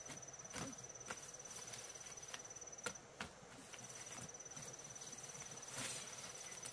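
Insect trilling in one high, finely pulsed, steady note that breaks off for under a second midway and then resumes, with a few soft knocks here and there.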